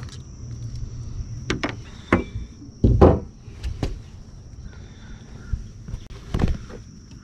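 A handful of sharp knocks and thumps on a boat deck as a flounder is handled and laid on a measuring board; the loudest is about three seconds in, and another comes near the end.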